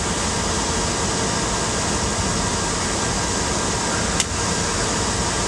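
Steady, even rushing hiss with a single sharp click about four seconds in.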